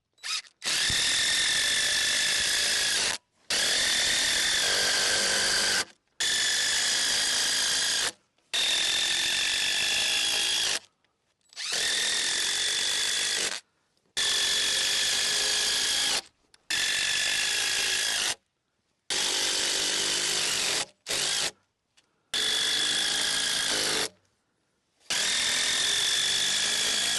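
Power drill driving screws into wood, in about ten runs of two to three seconds each with short pauses between, its motor giving a steady whine.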